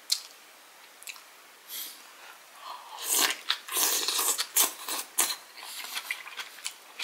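A man eating a hot spoonful of shiitake mushroom and cabbage from a dumpling hot pot. A few faint mouth clicks come first. About three seconds in there is a loud run of wet sounds as the food goes into his mouth, followed by chewing with scattered wet clicks.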